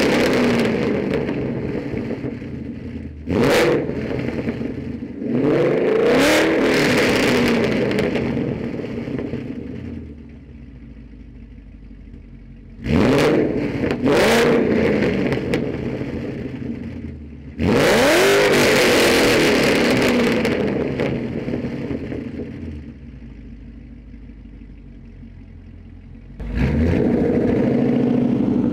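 2012 Mustang GT's 5.0 Coyote V8 through Borla long-tube headers, off-road X-pipe, resonator delete and Borla ATAK axle-back, revved in about six sharp blips. Each blip falls away over a few seconds back to a steady idle.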